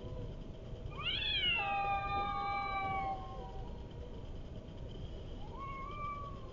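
Cat yowling in a fight standoff: one long drawn-out yowl that rises sharply about a second in and then slides slowly down over two and a half seconds, followed near the end by a shorter rising-and-falling yowl.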